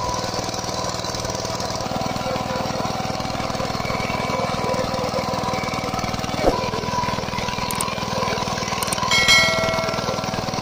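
VST Shakti 130 DI power tiller's single-cylinder diesel engine running steadily under load as its rotary tines churn through soil. A single sharp knock comes about six and a half seconds in, and a short bright electronic chime sounds near the end.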